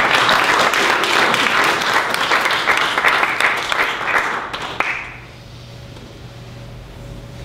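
Audience applauding, the clapping dying away about five seconds in and leaving only a faint low steady hum.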